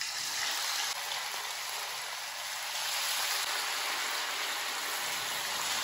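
Spice-marinated fish slices sizzling in hot oil as they are laid one after another into a shallow pan: a steady, dense hiss of shallow frying.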